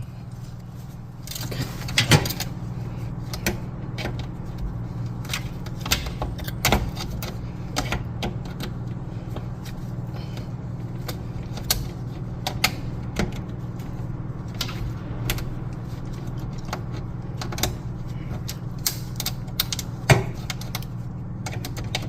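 Irregular metallic clicks and rattles of metal parts being handled as the stove's front panel is worked on, over a steady low hum.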